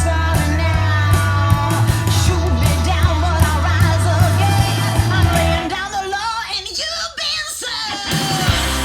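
Rock song with a singer, played back through a Telefunken TLX series loudspeaker. The bass and drums drop out about six seconds in, leaving the voice and guitar, and come back near the end.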